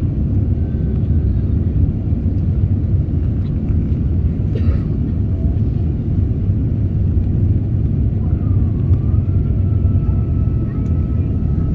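Steady low rumble of airliner cabin noise, the jet engines and airflow heard from inside the cabin on the descent.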